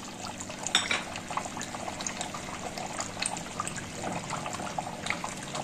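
Thick meat and potato curry bubbling and popping as it simmers in an open aluminium pressure cooker, with one light knock a little under a second in.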